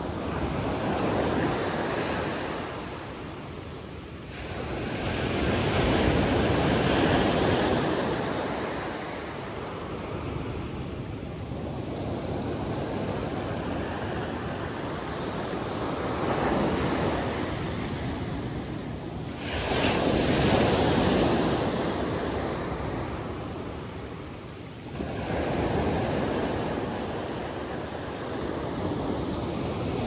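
Sea surf, waves washing in and drawing back, the rush swelling and easing every few seconds, with three sharper surges as waves break.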